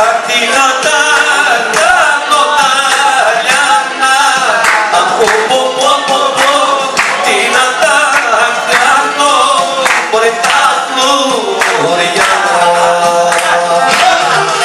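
Greek folk song for dancing: voices singing a melody over instrumental accompaniment, with a regular beat.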